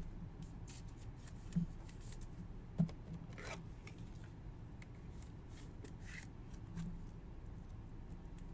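Faint handling of trading cards: light rustles and scattered small clicks, with a couple of soft taps about one and a half and three seconds in.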